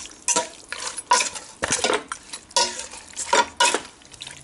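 A metal spoon scraping and clinking against a metal pot in repeated strokes, a few a second, as chopped chicken pieces are mixed with their seasoning.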